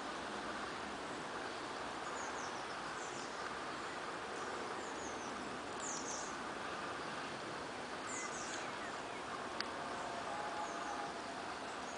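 Outdoor ambience: a steady hiss of background noise with small birds chirping high, in short descending chirps scattered through, and a single sharp tick a little before the end.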